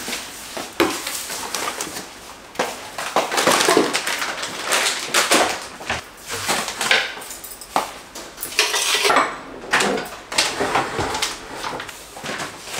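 Kitchenware and packaging being handled while unpacking a cardboard box and stacking things onto cupboard shelves: irregular clinks, knocks and rustles.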